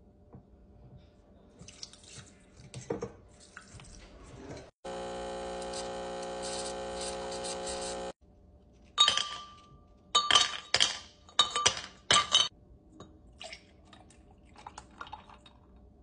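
Breville espresso machine's pump running with a steady hum for about three seconds while a shot pulls, cutting in and out abruptly. Later comes a run of loud, sharp clinks and knocks.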